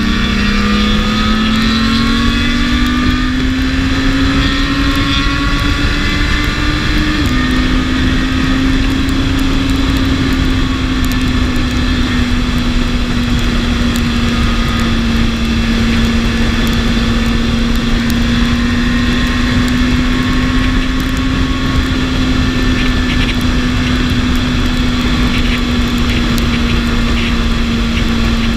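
BMW S1000RR's inline-four engine pulling up through the revs, dipping slightly in pitch about seven seconds in, then holding a steady high-revving cruise. Heavy wind rush runs under the engine note throughout.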